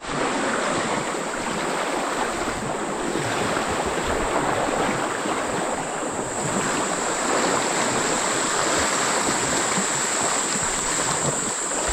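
Floodwater of a swollen river rushing past: a steady, even roar of running water, with a thin high insect drone running through it.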